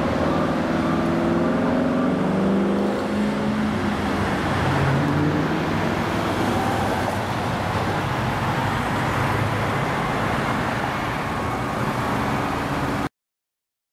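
Road traffic: cars passing, with a large engine's drone sliding down in pitch over the first few seconds. The sound cuts off suddenly near the end.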